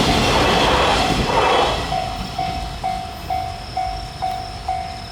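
Freight wagons rattling past on the rails, their noise fading away over the first two seconds as the train's tail recedes. A level-crossing warning bell rings steadily under it and is then left on its own, sounding about twice a second.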